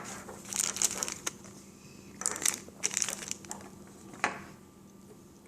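Plastic packaging crinkling in irregular bursts as the connector parts are handled and shown, with a few short clicks of the plastic fittings among them.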